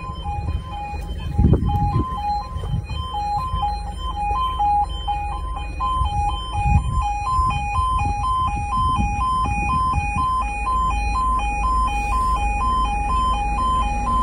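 Level crossing's E2S Yodalarm sounding its two-tone warning, with a high and a slightly lower tone alternating at an even pace. This is the signal that the barriers are down and a train is approaching. A low rumbling noise lies underneath.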